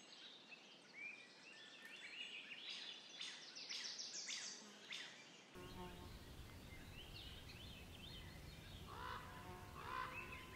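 Faint outdoor birdsong: small birds chirping and trilling rapidly. About halfway through the sound cuts to a steady low outdoor rumble, and near the end a bird gives a few lower, repeated calls.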